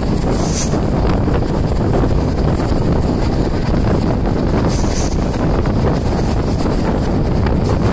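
Wind buffeting the microphone at an open window of a moving express train, over the train's steady running rumble.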